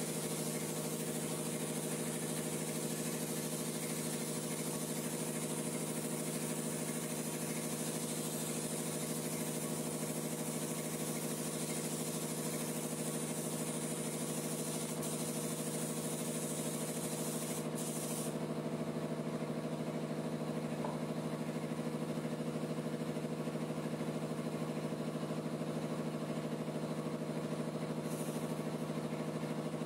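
Steady hum of a motor running at constant speed, with the air hiss of a gravity-feed paint spray gun laying paint on a car body. The hiss drops away about 18 seconds in and returns near the end, while the hum carries on unchanged.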